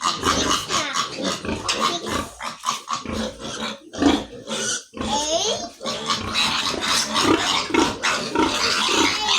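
Pigs grunting in quick, repeated short calls, with a higher-pitched squeal about four to five seconds in and steady grunts about twice a second near the end.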